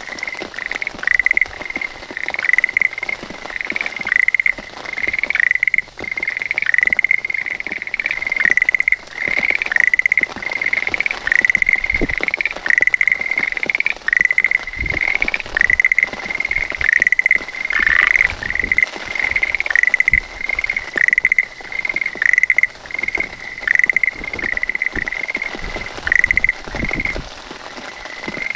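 Schlegel's green tree frog calling: a long series of short, repeated calls, roughly one a second, some coming in quick pairs.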